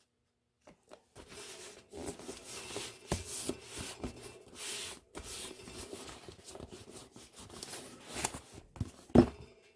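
Hands rubbing and smoothing a strip of gummed paper packing tape down onto a cardboard box, with scraping and crinkling. There is one sharp knock about nine seconds in.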